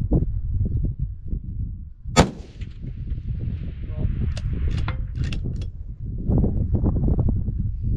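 A single scoped rifle shot about two seconds in, its report trailing off over the next few seconds, followed by a few sharp clicks. Wind rumbles on the microphone throughout.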